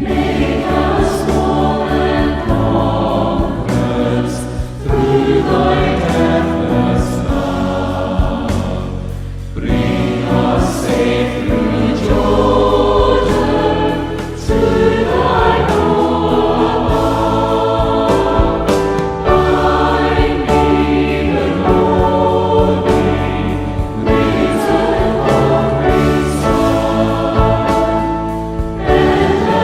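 Choir singing a hymn in harmony over held low accompanying notes, with a short break between phrases about every five seconds.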